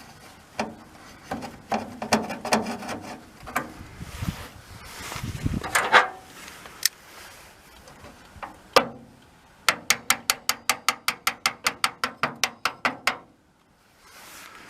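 Metal parts of a split-window VW bus's rear cargo door latch mechanism and rods being worked into place: scattered clicks, knocks and rattles, a single clunk, then a fast, even run of about twenty clicks that stops short.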